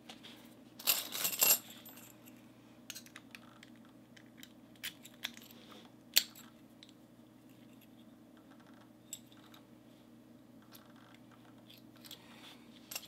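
Round brass-bodied American padlocks and their keys being handled and worked: a brief cluster of metallic clinks and clicks about a second in, then scattered single light clicks.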